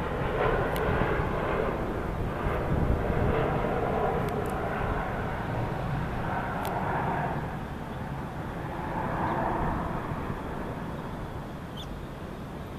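Boeing 737 airliner on landing approach, gear and flaps down, heard from the ground as a steady jet engine rumble that slowly fades toward the end as it moves away.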